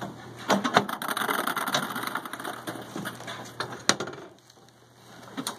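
Bingo balls clattering and rolling as the console's ball tray releases them back down into the machine. A rapid rattle of knocks with one sharp knock near the end, stopping a little after four seconds in.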